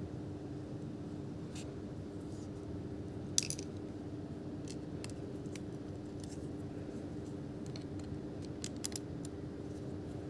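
Scattered light clicks and taps over a steady low hum, with one sharper click about three seconds in and a few close together near the end.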